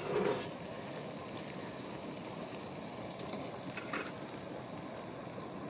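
Steady hiss of a pot of stew simmering on a camp stove, with a light clink about four seconds in.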